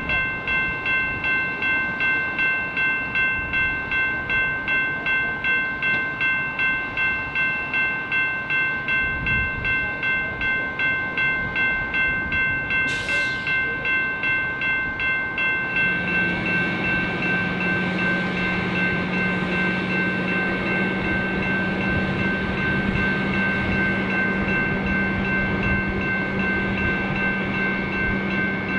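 Railroad bell clanging steadily about two strokes a second as a freight train passes. About halfway through the strokes blur into a continuous ringing and a low steady hum joins in.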